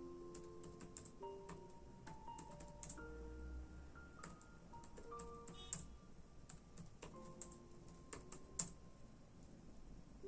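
Computer keyboard typing: faint, irregular keystroke clicks in uneven runs. Underneath is soft, slow music of held melodic notes.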